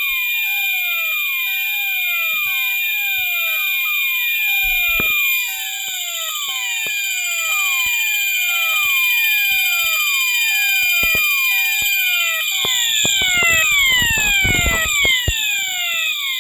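Fire alarm sounders driven from a Moose Z900 alarm panel's bell circuit, going off loudly: a falling electronic sweep repeats about once a second over a steady high-pitched tone. Knocks of handling come now and then, thickest near the end.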